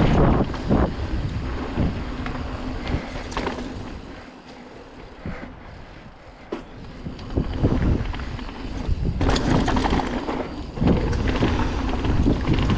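Mountain bike rolling fast down a dirt singletrack: wind buffeting the microphone, tyres crunching over the trail and the bike rattling on bumps. It eases off for a few seconds in the middle, then picks up again.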